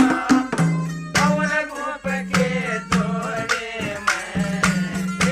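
Haryanvi ragni folk music: a bending melody line over a steady low tone, with regular drum strokes.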